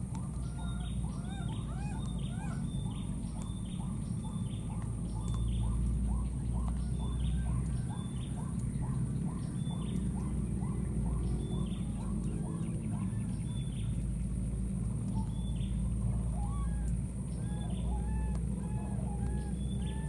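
Birds calling in a fast series of short, repeated arching notes with sharper high chirps among them, over a steady high-pitched whine and a low rumble.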